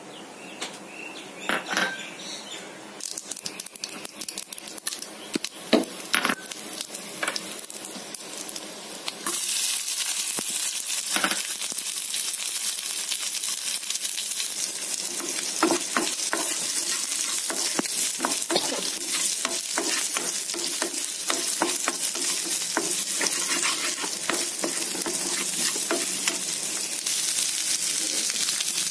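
Mustard seeds crackling and popping in hot oil in a pan, with sharp scattered pops; about nine seconds in, a loud steady sizzle starts as garlic and dried red chillies fry, with popping and stirring going on through it.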